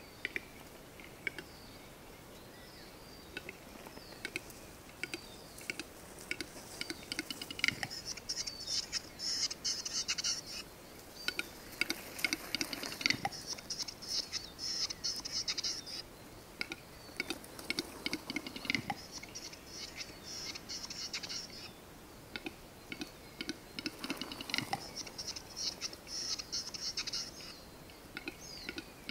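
Male western capercaillie singing at the lek: a string of dry clicks, then several scratchy, hissing whetting phrases a few seconds long, with more clicking between them.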